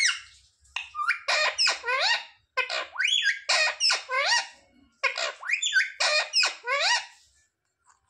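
Indian ringneck parakeet calling in rapid runs of high, squeaky notes that slide up and down in pitch, in three or four bursts with short breaks, falling quiet near the end.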